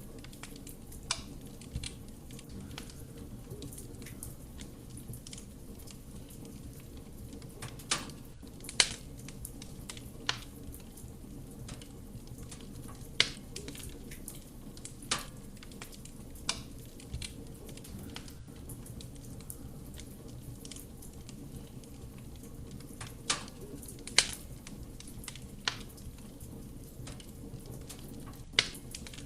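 Wood fire burning in a fireplace: a steady soft roar of the flame, with sharp crackles and pops of the burning wood at irregular intervals, about ten loud ones among smaller ticks.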